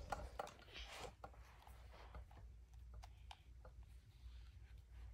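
Faint, scattered small clicks and taps of a plastic articulated dinosaur figure being handled and its jointed parts moved, over a quiet room.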